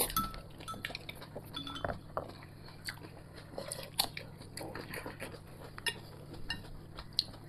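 Chopsticks clicking and tapping against porcelain bowls and a plate during a meal, with quiet chewing between the clinks.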